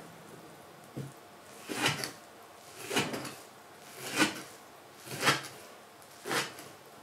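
Kitchen knife chopping soaked wakame seaweed on a wooden cutting board: about six chops, roughly one a second, each a knock of the blade on the board.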